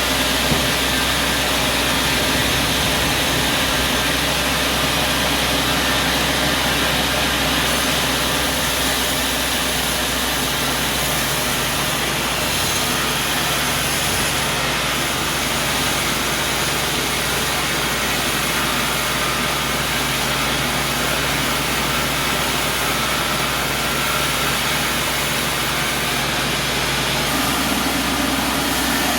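A portable sawmill running steadily, with a shift in its low hum about ten seconds in and again near the end.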